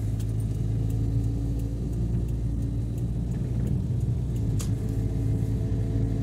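Car engine and road noise heard from inside the cabin while driving: a steady low drone, with a single sharp click about four and a half seconds in.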